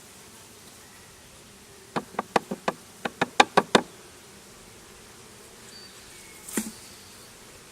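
Honeybees humming steadily around an opened hive. About two seconds in comes a quick run of about ten sharp knocks, with one more knock near the end.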